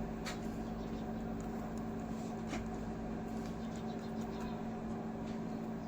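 A steady low electrical hum from the repair bench, with a few faint clicks from small tools being handled.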